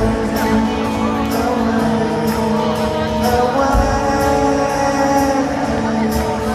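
Live rock band playing in an arena, with sustained guitar and keyboard chords over a steady drum beat and regular cymbal hits, about two a second.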